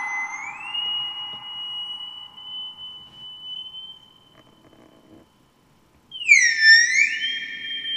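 Unreachable Void homemade noise machine giving a high electronic whistle. A steady tone glides up in pitch about half a second in, holds and fades out midway. After a brief gap it comes back as a tone swooping up and down in pitch, theremin-like.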